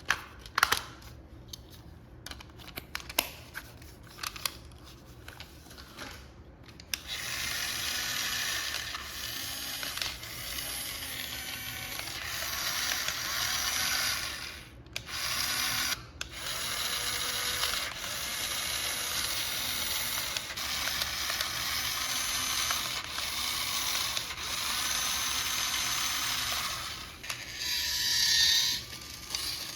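Light plastic clicks and handling, then a remote-control toy car's small electric motor and plastic gears whirring steadily for about twenty seconds. The whirring breaks off twice briefly and then stops near the end.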